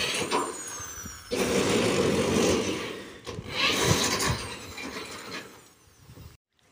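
Electric drill running in short bursts, driving screws through metal roofing sheets, over steady outdoor noise.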